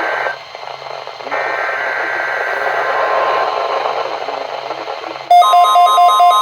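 Weather radio receiving a NOAA Weather Radio test through static: two hissing bursts of the digital alert header, then about five seconds in the loud, steady 1050 Hz warning alarm tone starts, with an evenly pulsing beep sounding over it.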